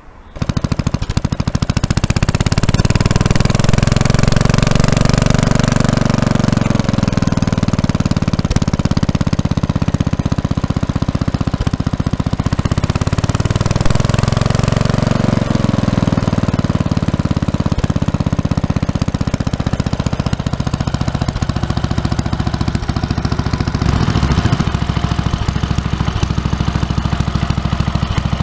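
Propane-fuelled JAP 4/2 single-cylinder stationary engine running, with its belt-driven dynamo. It speeds up and slows back down twice as the manual throttle is opened and closed, then runs at a steady speed.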